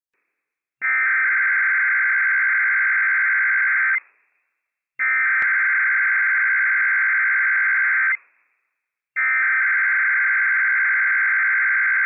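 Emergency Alert System SAME digital header tones from NOAA Weather Radio for a Required Weekly Test. Three identical data bursts of about three seconds each, a second apart, carry the coded event, area and time information. A faint click comes just after the second burst starts.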